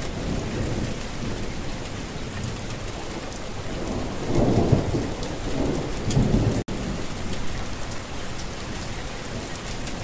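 Steady rain falling, with low rolls of thunder rumbling about four and six seconds in. The sound cuts out for an instant about two-thirds of the way through.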